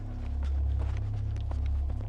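Footsteps of a person running through woods while carrying the camera, with scattered crunches and knocks over a heavy low rumble of handling and wind noise on the microphone.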